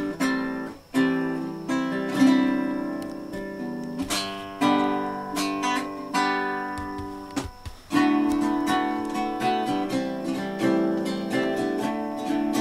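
Acoustic guitar being practised: chords strummed and plucked, each ringing and fading, with short stops about a second in and again around seven and a half seconds before the playing picks up.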